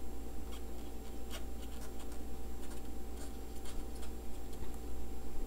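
Stylus tapping and scratching on a drawing tablet in short irregular clicks as handwriting is written, over a steady low hum.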